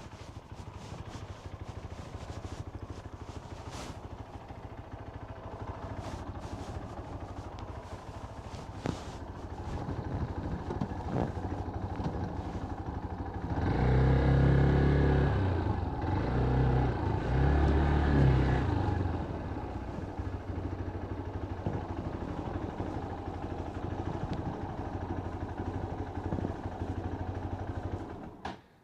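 A vehicle engine running steadily under wind noise on the microphone. It grows louder for about five seconds midway, then settles back.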